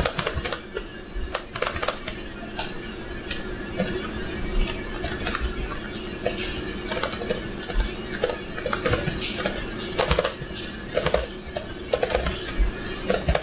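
Typing on a laptop keyboard: irregular key clicks over a steady low hum.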